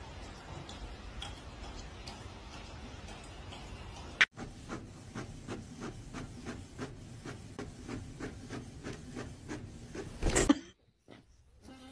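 Inkjet printer printing a page: the print head and paper feed make regular clicks at about four a second as the sheet comes out. This begins about four seconds in, after a single sharp click. It ends near the end with a short, louder noise.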